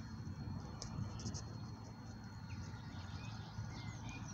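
Outdoor background of a low, even rumble with a few short, high bird chirps, a cluster about a second in and more near the end.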